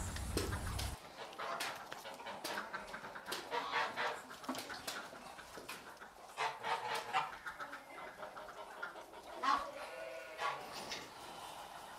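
Egyptian goose giving short, harsh cackling calls at irregular intervals, with a longer call about ten seconds in. A low wind rumble runs under the first second and stops at a cut.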